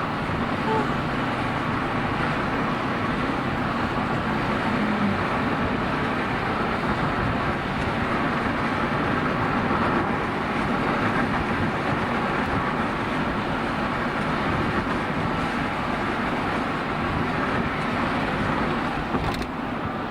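Steady road and engine noise of a moving car heard from inside the cabin, with one short click near the end.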